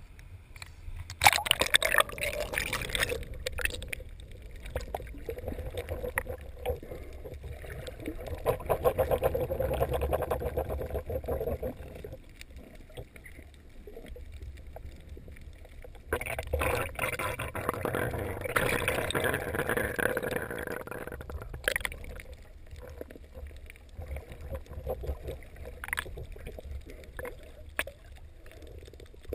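Water sloshing and splashing around a GoPro's waterproof housing, alternating with muffled underwater gurgling and bubbling. There are louder splashy stretches about a second in and again past the middle, and a few sharp clicks or knocks near the end.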